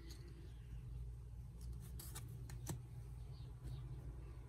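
Faint clicks and light rustles of vintage playing cards being handled and swapped between the fingers, over a steady low hum.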